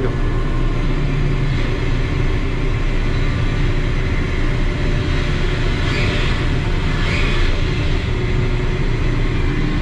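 Ship's deck crane machinery running steadily under load while its grab is closed and hoisted at once, a loud continuous low rumble.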